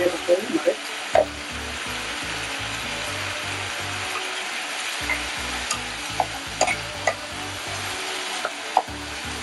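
Sliced beef sizzling as it fries in oil in a nonstick frying pan, a steady hiss with scattered ticks and knocks as a wooden spatula stirs and turns the meat.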